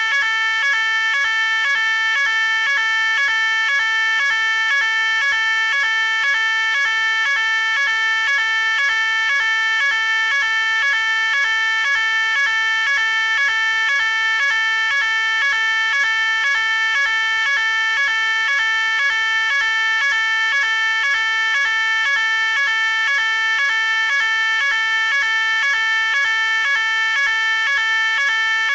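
Electronic fire alarm sounding continuously: a loud, high electronic tone pulsing in a fast, even, repeating pattern without a break.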